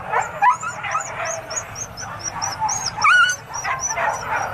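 Many hunting dogs barking and yelping at once, excited, with a loud rising yelp about three seconds in and a quick run of high yips throughout.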